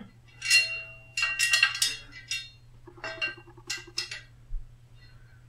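Metal hardware of a backdrop-roller wall bracket and its screws being handled, giving several short bursts of clinks and rattles with a light ringing.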